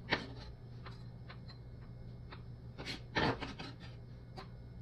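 Chef's knife chopping and scraping minced garlic on a cutting board: a few light taps, then a louder scrape of the blade across the board about three seconds in.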